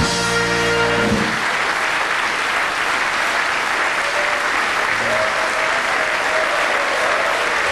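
Carnival hall audience applauding over band music. A held chord from the band sounds in the first second, then the clapping carries on under a fainter sustained tone.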